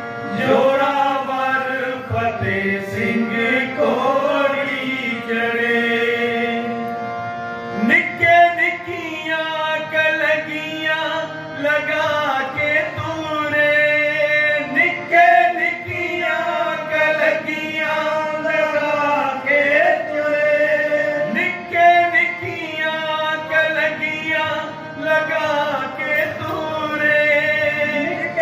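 Sikh devotional kirtan: a harmonium holding steady chords under men's singing, with tabla strokes keeping a rhythm from about eight seconds in.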